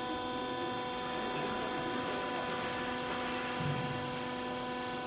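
A steady electric hum, made of several even tones held without change, with a faint low thump about three and a half seconds in.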